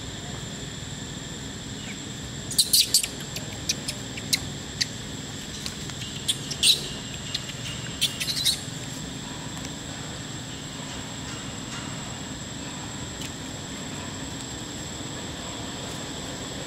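Baby macaque squeaking: a cluster of short, sharp, high-pitched squeaks and chirps starting about two and a half seconds in and dying away after about six seconds, over a steady faint high whine.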